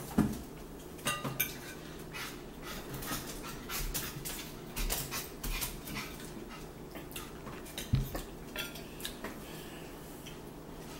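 Cutlery clinking and scraping against plates, with scattered knocks of dishes being handled at the table; the sharpest knocks come near the start and about eight seconds in.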